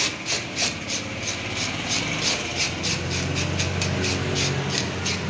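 Red plastic fish scaler scraping the scales off a large silver carp on a wooden board, in quick rasping strokes about three a second. A low hum comes in underneath from about halfway.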